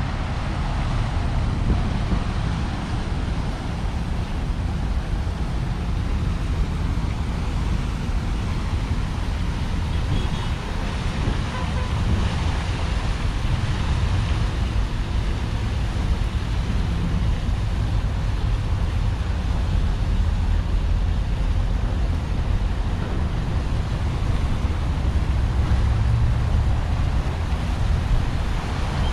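Steady road traffic noise, a continuous low rumble of passing cars.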